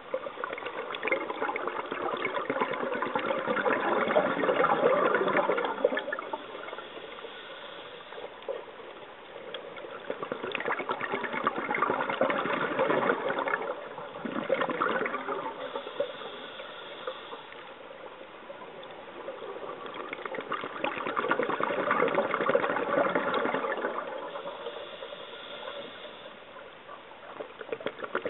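Scuba regulator exhaust bubbles gurgling underwater: three long exhalations, each swelling and fading over several seconds, about ten seconds apart, with quieter pauses between them as the diver breathes in.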